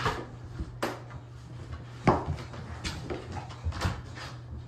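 Cloth being rubbed over the inside of a bathtub, with four sharp knocks against the tub spread through it, over a steady low hum.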